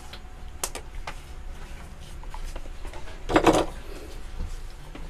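Electrical tape and wires being handled as the connections are taped up: a few light clicks, then a short rasp about three and a half seconds in, over a low steady hum.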